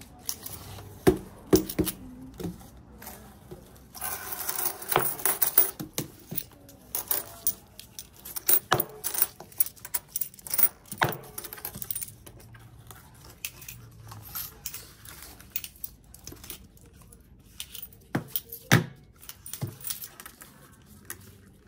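Coins and filled paper coin rolls being handled on a tabletop: irregular clinks and knocks as rolls are picked up and set down, with a busier stretch of jingling about four seconds in.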